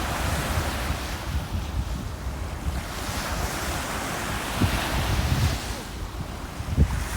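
Ocean waves breaking and washing, with wind buffeting the microphone in a low rumble. The wash swells in the middle, and two short thumps come about four and a half seconds in and again near the end.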